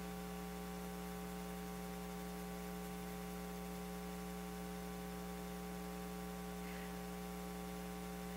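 Steady electrical mains hum: a set of constant tones over a faint hiss, unchanging throughout.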